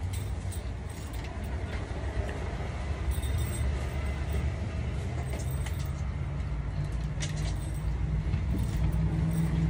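Steady low vehicle rumble heard inside a car cabin, with a few faint, short clicks and rustles.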